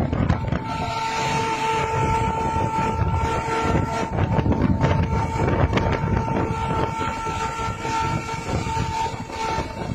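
Truck horn held in one long steady note, with a couple of brief breaks near the end, over the low rumble of truck engines.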